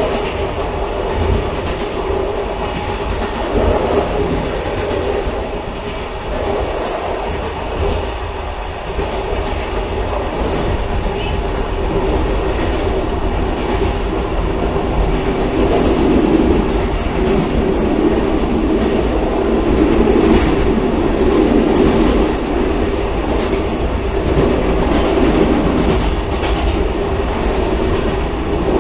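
Railcar running steadily on the rails: a continuous rumble of wheels on track, with a hum that grows louder about halfway through and a few faint clicks.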